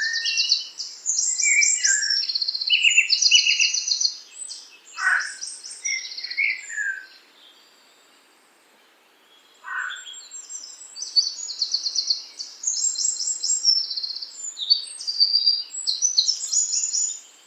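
Songbirds singing in rapid high trills and short chirps, phrase after phrase, with a few quick falling notes. The song stops for about two seconds midway, then starts again.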